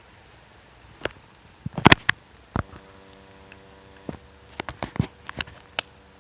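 Thick wet branches being laid into a fire pit: irregular knocks and clicks of damp wood, loudest just before two seconds in and again in a quick run near the end. A steady low buzz sets in about two and a half seconds in.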